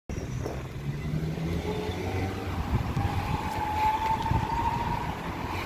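Street traffic noise with a vehicle passing, its motor whine rising slightly in pitch through the middle and fading near the end.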